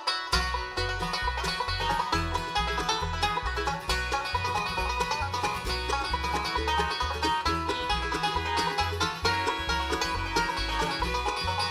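Bluegrass band playing an instrumental intro: banjo rolls to the fore over guitar and mandolin, with the bass pulsing in a steady beat underneath.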